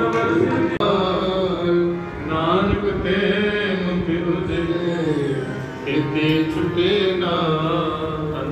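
Gurbani kirtan: a voice singing a devotional hymn in a slow, gliding melody over sustained instrumental accompaniment.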